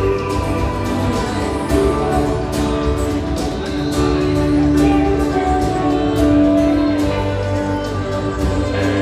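Live band music with guitars, played at a steady beat, with a long held note through the middle of the passage.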